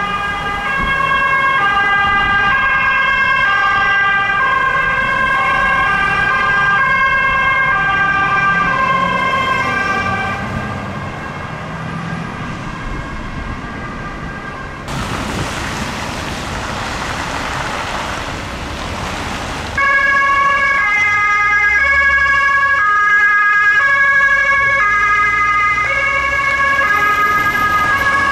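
Sirens of Swedish emergency vehicles: alternating two-tone notes stepping up and down over a steady held tone, as several sirens overlap. The sirens fade about a third of the way in, a loud rushing hiss takes over for about five seconds, and then the stepped siren notes return louder to the end.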